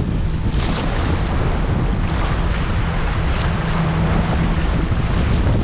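Turbulent tidal bore water rushing and churning around a canoe, with wind buffeting the camera microphone.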